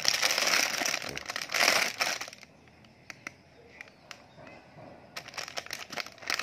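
Clear plastic wrapping on a toy truck crinkling and crackling as it is handled and opened. It stops for about three seconds in the middle, leaving a few faint clicks, then starts again near the end.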